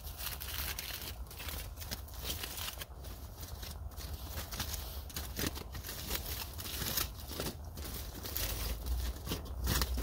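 Plastic bag and foil food wrapping crinkling and rustling in irregular bursts as it is handled and unwrapped.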